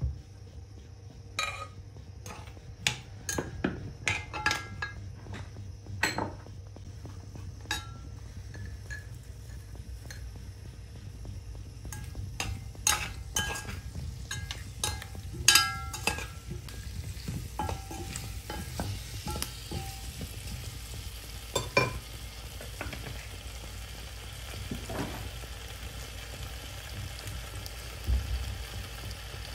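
Potato wedges frying in oil in a pot. Sharp clinks and knocks come as the pieces are turned against the pot, then a steady sizzle builds over the last several seconds.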